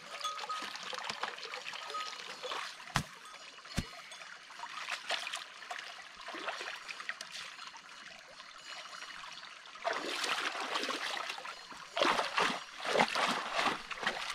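Shallow muddy stream trickling, with hands and feet splashing in the water; the splashing grows louder and more frequent in the last few seconds. Two sharp clicks, a little under a second apart, about three seconds in.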